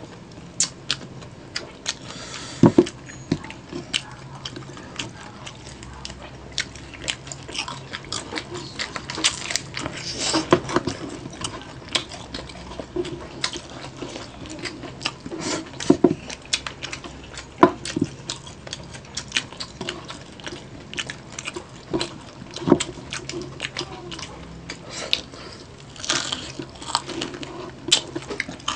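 Close-up eating of crispy pata, deep-fried pork leg: crisp skin crackling and crunching as it is bitten and chewed, with irregular sharp crackles and the wet sounds of chewing, while meat is torn from the bone by hand.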